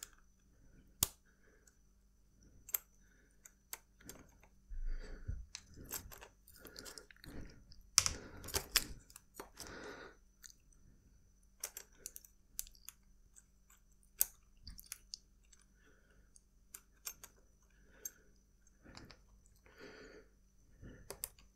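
Close-up handling noises of an aluminium bicycle chain guide being worked on with an Allen key: irregular small clicks, taps and short metallic scrapes as the hex bolt is loosened and the guide is pressed into place around the chain, with a busier burst of scraping about eight seconds in.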